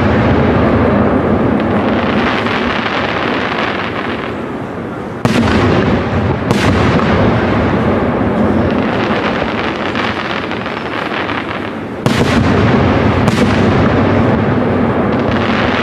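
Large aerial fireworks display: shells burst with sharp bangs in two pairs about a second apart, the first pair about five seconds in and the second near twelve seconds in, over a dense, continuous wash of display noise that slowly fades after each pair.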